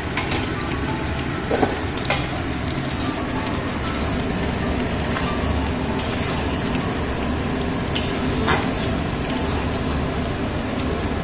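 Spinach and fenugreek-leaf paste sizzling and bubbling in a kadai as it is slow-fried, with a few sharp knocks of a spatula against the pan as it is stirred.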